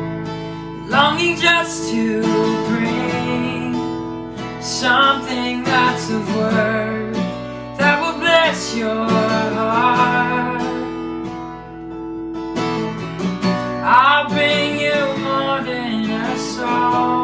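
Worship song music led by a strummed acoustic guitar, with some singing over it.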